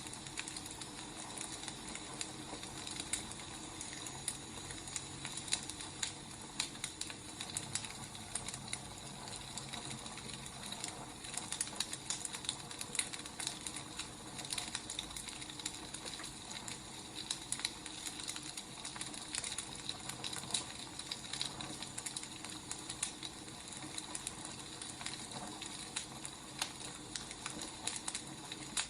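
Wood fire crackling: a steady hiss with many irregular sharp pops and snaps.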